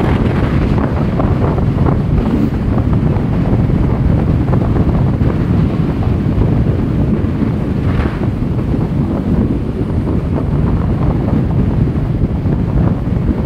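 Loud, steady wind rumble buffeting the microphone of a camera moving along a road at speed.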